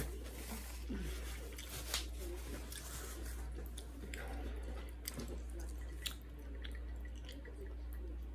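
Someone chewing a mouthful of jajangmyeon noodles, with scattered soft wet mouth clicks and smacks over a low steady hum.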